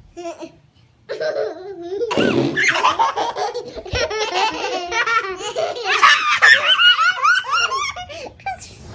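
Young children laughing hard: high-pitched giggles in quick waves, starting about a second in.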